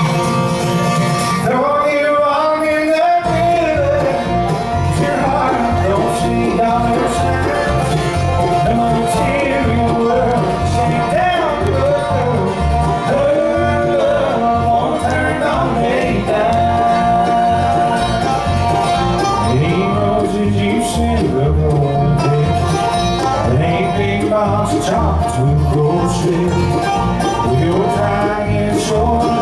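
Live bluegrass band playing an up-tempo song, with banjo, guitar and fiddle over a steady plucked rhythm.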